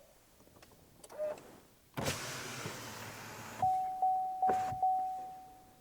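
Car's power window motor running for about a second and a half as the glass goes down, then the car's warning chime dinging four times, a steady single tone that dies away after each ding.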